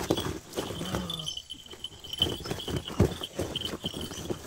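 Irregular thuds, knocks and rustles, with a steady high insect trill underneath.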